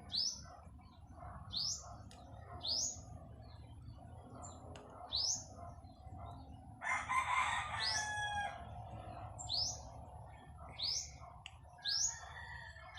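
A small bird chirping over and over, short high rising chirps about once a second, with a rooster crowing once about seven seconds in.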